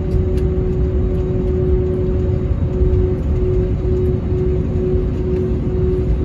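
Jet airliner taxiing at low engine thrust, heard from inside the cabin: a steady low rumble with a steady hum over it.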